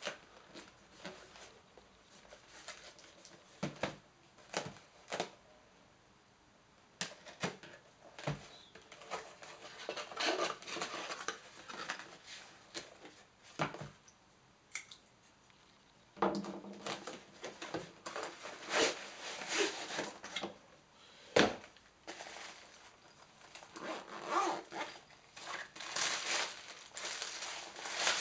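Hands unboxing a camera tripod: scattered knocks and taps of the cardboard box on a wooden desk, cardboard flaps being opened, then from about halfway the rustle of the fabric carry bag and crinkling plastic wrap as the tripod is pulled out, with one sharp knock standing out.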